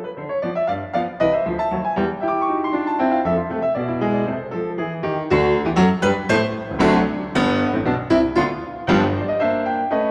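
Background piano music, a run of quick struck notes that grows busier and brighter about halfway through.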